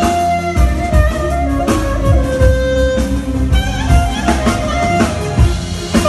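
Live band music from an electronic keyboard: a sustained melody that slides between notes over a steady drum beat.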